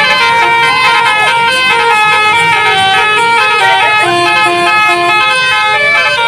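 Tunggal Jaya bus's basuri (telolet) horn playing a loud tune: held notes change in steps, several sounding together, with a few short sliding tones between them.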